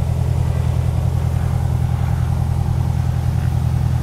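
200 hp Lycoming IO-360-C1C four-cylinder aircraft engine running steadily on the ground at low power, with a rapid, even exhaust pulse and propeller beat.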